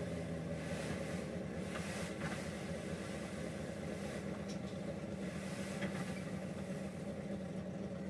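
Dump truck's engine running steadily at an even pitch while its raised tipper bed unloads sand.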